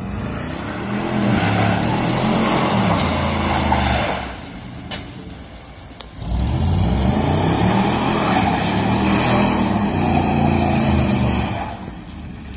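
Engine of a 1990s two-door Chevy Tahoe revving hard in two long pulls as it spins in circles on wet pavement. Its pitch climbs and falls within each pull, with a short lull between them.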